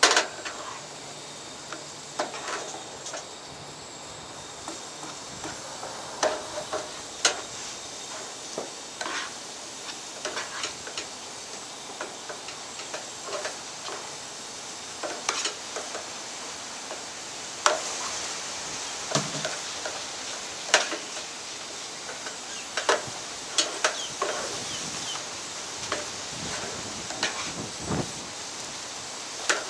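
Egg mixture frying in a pan on a Coleman camp stove with a steady sizzling hiss, while a folding spatula scrapes and taps against the pan in irregular strokes, some of them sharp clicks.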